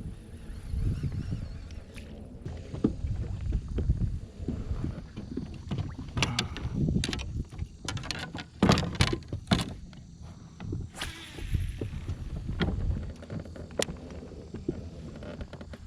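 Handling noise on a fishing kayak: a low rumble with a run of irregular knocks and clicks against the boat in the middle, and a brief hiss a little later.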